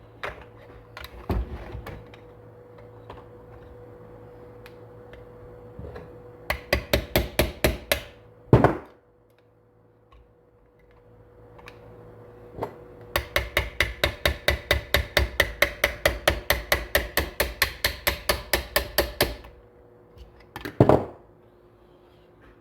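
Small hammer tapping rapidly on metal, about five or six taps a second. A short run comes first, then a single heavier blow, then a longer run of about six seconds. This is typical of driving the wrist pin out of a chainsaw piston after its circlips are removed.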